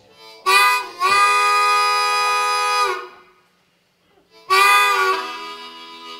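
Harmonica played solo in a train-imitation piece: a short blast, then a long held chord that bends at its start and end, like a train whistle. After a pause of about a second and a half, another long chord sounds and fades into lower notes.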